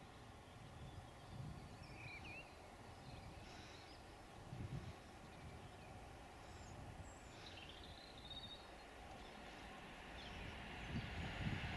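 Faint ambience with a few small bird chirps; near the end the low rumble of the approaching Class 66 diesel locomotives grows louder.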